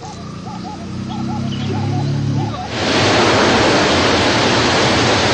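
Faint repeated bird calls over a low hum. About two and a half seconds in, a loud, steady rushing noise starts abruptly and drowns them out.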